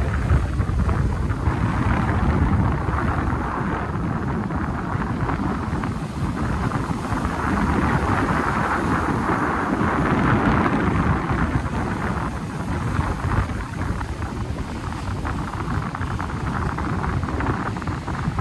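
Strong wind buffeting the microphone over waves washing onto the shore: a loud, steady rush that swells and eases.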